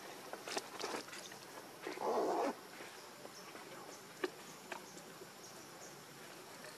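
A macaque gives a single short, harsh grunt-like call about two seconds in. A few sharp clicks and scuffs come before and after it.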